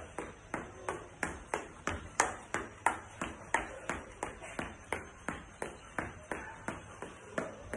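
Shoes striking a tiled floor during high-knee running, a steady rhythm of sharp footfalls at about three a second.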